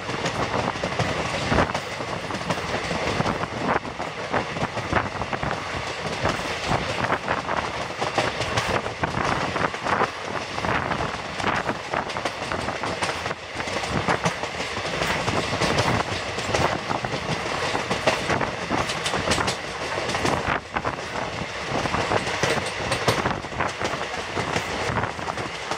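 Passenger coach running at speed, heard from an open window: a steady rumble of wheels on the track with irregular clicks and clatter throughout.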